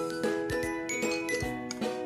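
Background music: an upbeat instrumental with bell-like mallet notes over a steady beat.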